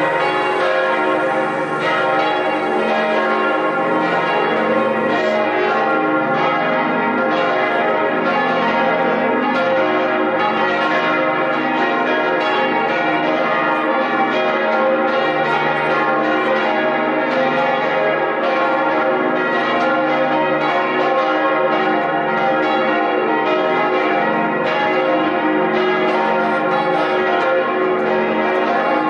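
Several church bells ringing together in a full peal, their strikes overlapping into a dense, steady wash of ringing tones with no break.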